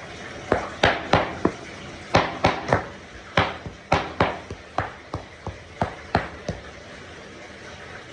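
Large kitchen knife chopping raw beef into burger mince on a cutting board: a run of sharp knocks of the blade striking the board, about two or three a second, stopping about six and a half seconds in.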